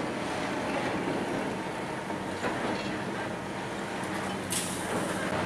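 Diesel engine of a Liebherr R 944 C high-reach demolition excavator running steadily under load, with rattling and clatter from its demolition jaw and rubble. A brief hiss about four and a half seconds in.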